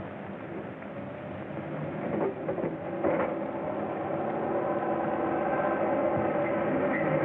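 Steam train running, growing louder from about three seconds in, with steady tones held over the noise of the train.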